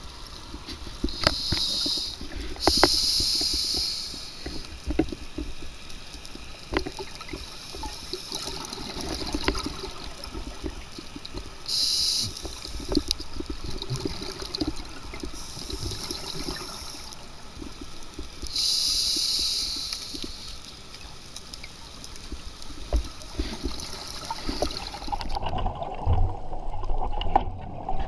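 Scuba regulator breathing underwater, heard through a camera housing: loud hissing, bubbling breaths every few seconds over a steady wash of water noise. Near the end the hiss stops and a lower rumble takes over.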